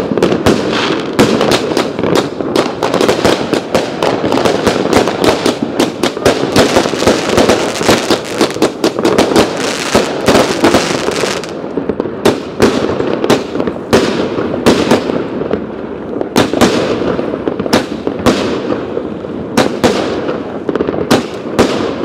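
Fireworks going off all around at once. A dense run of rapid bangs and crackles in the first half thins out to scattered separate bangs over a steady rumble of more distant ones.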